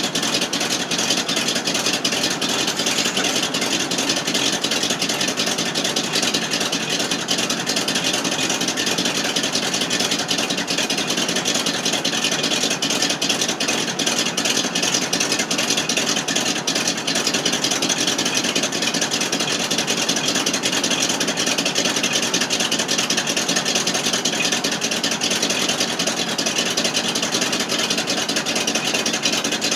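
Engine of a 1988 FMC 6000 U-Haul truck idling steadily, recorded at the exhaust.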